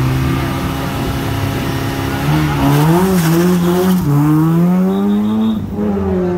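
Citroën Saxo rally car's engine held at raised revs on the start line, then launching. The revs climb and waver as it pulls away, drop at a gear change about four seconds in, then climb again to a second shift near the end.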